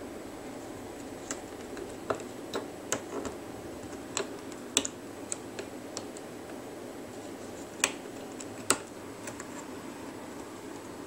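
Light, irregular clicks and taps of a plastic hook and rubber bands against the clear plastic pegs of a rubber-band loom, about a dozen scattered through the stretch, over a steady low hum.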